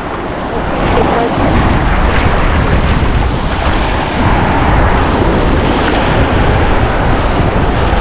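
Sea waves washing onto a beach, steady surf noise, with wind rumbling on the microphone.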